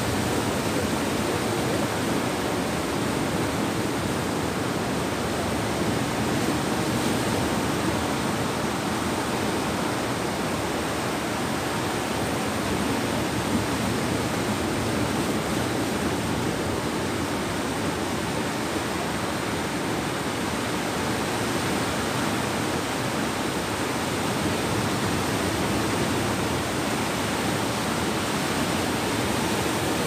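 Sea surf breaking offshore and washing up the sand: a steady, even rush of water noise with no let-up.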